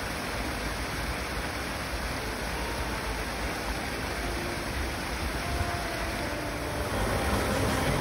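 Small waterfall: stream water pouring over a stone ledge and splashing into a foaming pool, a steady rushing sound that grows a little louder near the end.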